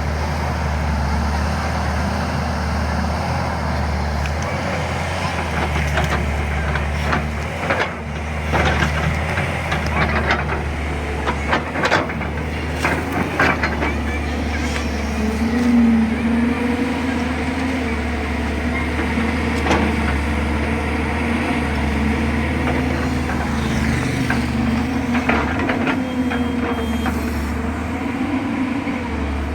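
JCB 205 excavator's diesel engine running steadily under hydraulic load, with scattered sharp clanks and knocks from the machine digging. About halfway through the engine note rises and holds higher as it works harder.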